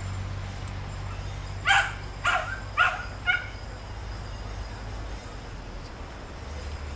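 A dog barking four times in quick succession, about half a second apart, starting a little under two seconds in, over a low steady hum.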